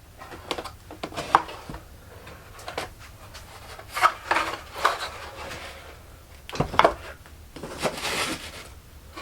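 Workshop handling sounds of a wooden guitar body and small tools: scattered light knocks and clicks, with a few short scraping or rubbing strokes as the body is marked for glue.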